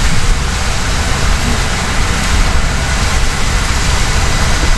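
Car cabin noise while driving in heavy rain: rain on the windscreen and body and tyres on the wet road, a steady rushing noise with a low rumble underneath.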